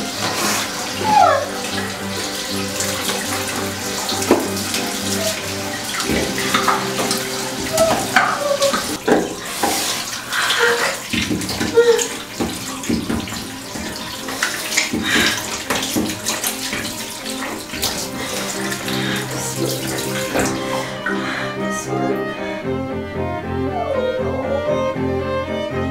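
Bathroom sink tap running, water splashing over a phone held under it, with background music underneath. Near the end the water stops and only the music carries on.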